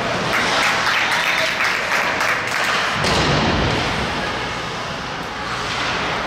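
Spectators in an ice hockey rink cheering and clapping, loudest in the first three seconds and then easing off.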